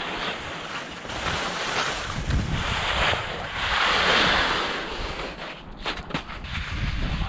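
Fischer skis hissing and scraping over soft, slushy spring snow, swelling to the loudest midway through during a turn. Wind rumbles on the microphone throughout, and a few sharp clicks come near the end.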